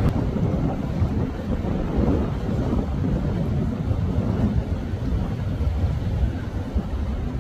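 Steady low rumble of motorboats running past, mixed with wind on the microphone.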